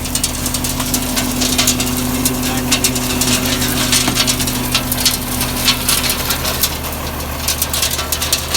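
Dump truck engine idling under a dense, irregular clatter of aggregate being fed by the all-season body's conveyor chain onto the spreader spinner. A steady hum underneath fades out about halfway.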